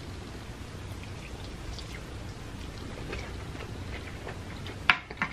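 Close-miked wet chewing and mouth clicks while eating, a light scattered crackle over a steady low hum, with two sharper clicks near the end.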